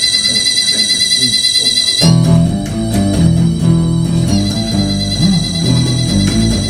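Harmonica holding a wavering chord on its own, then electric guitar and bass guitar come in together about two seconds in, with the harmonica holding long notes over them again near the end.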